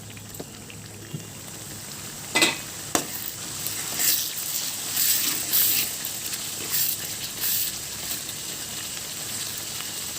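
Spice masala with mint frying and sizzling in a pan while it is stirred: two sharp knocks of the spatula on the pan about two and a half seconds in, then a run of scraping stirring strokes over the steady sizzle. The masala is being fried until its raw smell cooks off.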